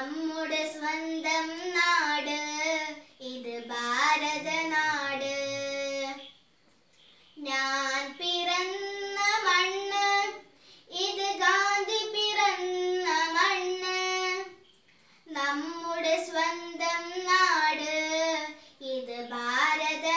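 A young girl singing a song solo and unaccompanied, in long held phrases with three short breaks for breath.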